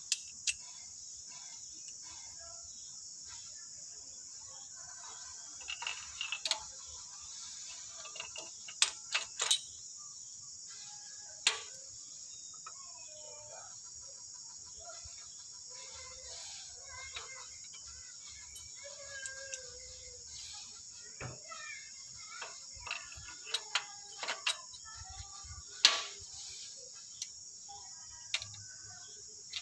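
Scattered sharp metallic clicks and clinks of hand tools and parts being handled on the open cylinder head of a Nissan engine, over a steady high hiss.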